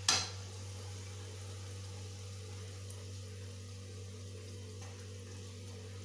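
A metal utensil clinks once against a frying pan right at the start, then food fries quietly in oil with a faint sizzle over a steady low hum.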